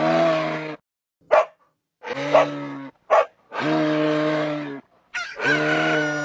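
Livestock calling: several long, steady, low-pitched calls of about a second each, with two short sharp cries between them.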